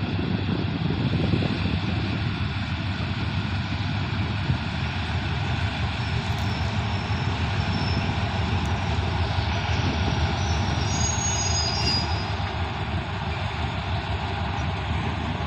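Hitachi diesel-electric locomotive No. 4515 hauling a passenger train into a station: a steady engine drone with the rumble of wheels on the rails, and a few faint high squeals about ten to twelve seconds in.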